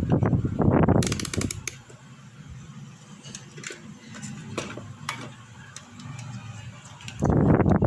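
Hands handling small radio parts: rustling and scraping, loudest in the first second and again near the end, with scattered small clicks and taps between, including a quick run of ticks just after the first second.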